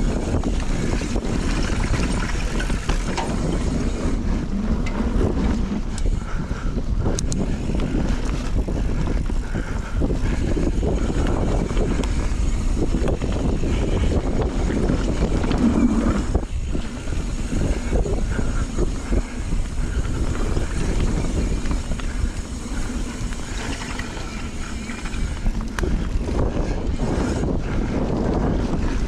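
Knolly mountain bike riding down a dirt singletrack: wind rushing over the microphone and the rumble of the tyres on dirt, with frequent small knocks and rattles from the bike over the rough trail.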